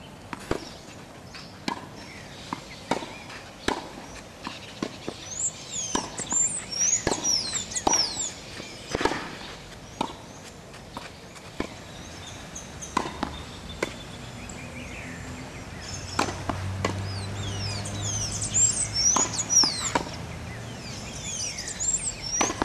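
Tennis ball struck by a racket and bouncing on a clay court, a sharp pop roughly every second through a rally. Birds chirp in the trees in two stretches.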